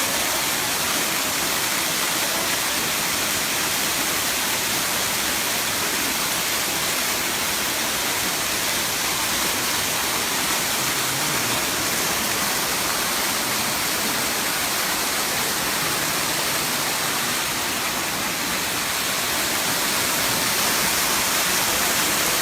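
The seventh tier of Erawan waterfall, water pouring down in a steady, even rush with no breaks.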